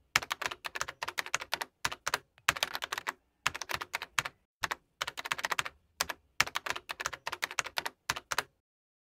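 Keyboard typing: quick runs of key clicks in short bursts with brief pauses between them, stopping near the end.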